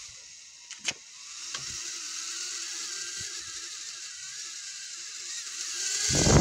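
Small toy quadcopter drone in flight, its propellers whirring with a steady whine. There is a sharp click about a second in, and near the end a loud rush of air builds up.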